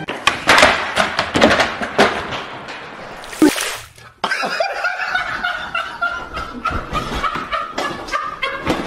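A jumble of loud, sudden sounds, then about four seconds in a cut to young men laughing hysterically, one with a high-pitched squealing laugh held for several seconds.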